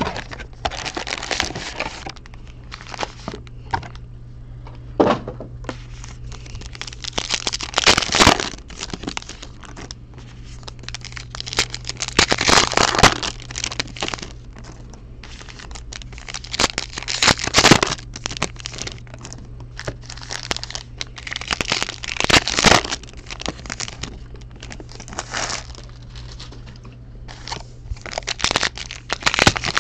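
Trading card pack wrappers being torn open and crinkled while cards are handled, in irregular bursts of ripping and rustling every few seconds with sharp clicks, over a steady low hum.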